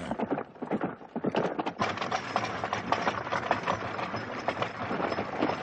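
Horses' hooves drumming at a fast pace, with the wheels and frame of a horse-drawn wagon rattling along; the rattle thickens from about two seconds in.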